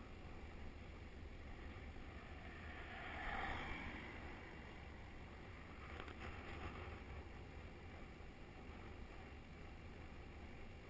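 Riding noise from a bicycle on a tarmac road: a steady rush of wind over the microphone and tyre hum, swelling louder for a second or so about three seconds in.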